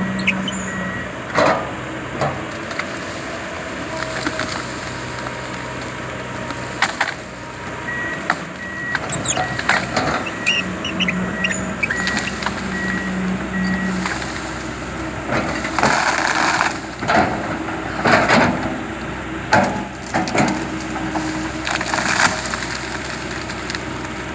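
Komatsu PC200LC tracked excavator working a tree stump: its diesel engine runs steadily under the sharp cracking and splintering of wood being broken and pulled out, with the loudest cracks about two-thirds of the way in. A beeping alarm sounds in a steady series for several seconds near the middle.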